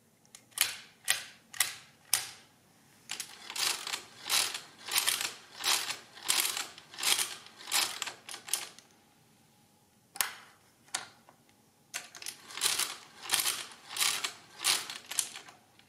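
Monroe Model K mechanical calculator in use with its casing off. First several keys are pressed with sharp clicks. Then the hand crank is turned again and again, each turn a swelling mechanical clatter of the stepped drums and gears, about one and a half turns a second. After a pause come two single clacks and another run of crank turns, as a multiplication is worked by repeated addition.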